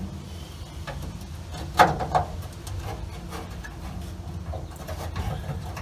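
Gauge being test-fitted into a dash adapter plate by hand: a couple of sharp knocks of metal parts about two seconds in, with small handling clicks, over a steady low hum.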